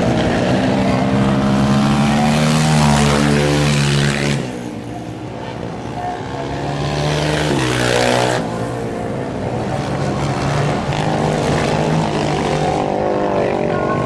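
Racing quad bike engines on a dirt track: the engine note climbs, drops off sharply about four seconds in, climbs again and drops about eight seconds in, then runs on steadily.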